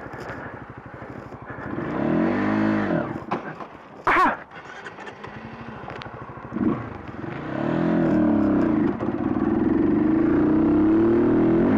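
Honda CBR125R's small single-cylinder engine revving up and dropping back about two seconds in, then pulling away and climbing in revs, holding high revs near the end.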